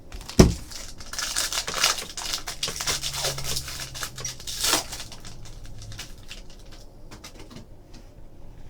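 Trading cards and their plastic and paper packaging being handled: a sharp click about half a second in, then crinkling and rustling with small ticks, dying down after about five seconds.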